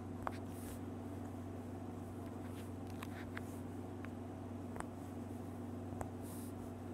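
Frog-shaped pop-it fidget toy being pressed with a finger: a few soft, sharp pops at irregular intervals over a steady low hum.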